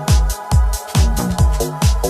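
Electronic dance music with a steady kick drum, about two beats a second, over held synth chords.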